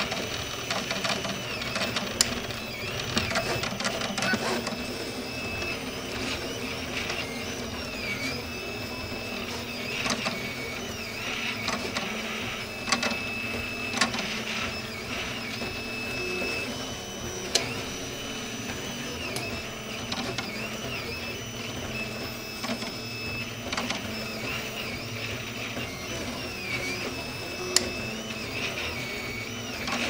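RepRap 3D printer's stepper motors whining as the print head moves back and forth laying down plastic, the pitch rising and falling with each move, with a few sharp clicks.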